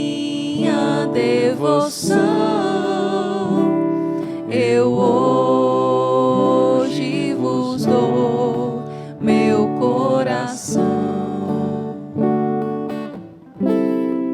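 Acoustic guitar accompanying a solo singer holding long notes with vibrato, in a slow Catholic hymn of consecration to Mary.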